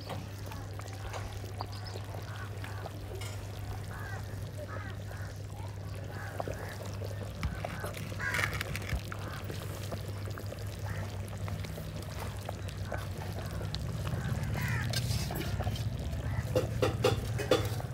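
Fish curry bubbling in a clay pot over a wood fire, with scattered clicks as the pot is handled and birds calling in the background.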